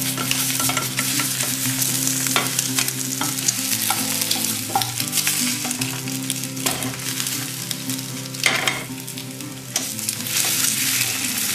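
An egg omelette sizzling in a lightly oiled frying pan, with a spatula scraping and tapping against the pan every couple of seconds as the omelette is lifted.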